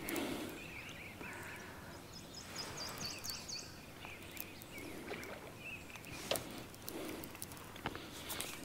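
Faint outdoor sounds: scattered high chirps, with a quick run of short, very high notes about three seconds in, and a few sharp clicks near the end.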